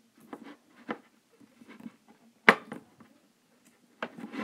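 Thick, stiff slime that will not stretch being pushed down into a glass mason jar by fingers: scattered soft squishes and small crackling pops, with one sharp click about two and a half seconds in.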